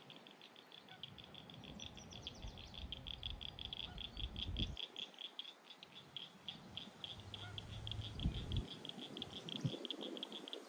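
Outdoor animal chorus: a steady, fast-pulsing high trill with a few scattered chirps, and a low rumble coming and going underneath.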